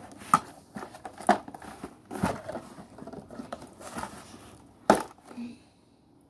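Plastic toy packaging crinkling and crackling as it is handled and pulled apart, with several sharp clicks, the loudest about five seconds in. It dies away near the end.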